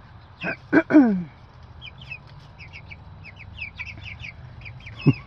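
Flock of young meat chickens (broilers) peeping in many short, high notes. A few louder calls about half a second to a second in slide down in pitch, and there is one short sharp call near the end.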